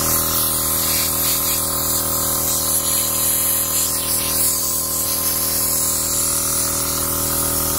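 Maxtrac 160 L/min 12 V portable air compressor free-running with no load, air blowing straight out of its open hose. A steady motor-and-piston hum sits under a loud, even hiss of rushing air.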